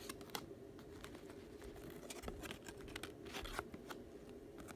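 Trading-card pack wrappers being torn open and crinkled, a run of faint, irregular crackles.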